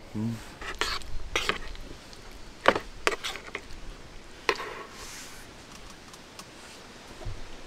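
Eating utensils clinking and scraping against a dish in a handful of scattered sharp clicks, the sharpest a little under three seconds in.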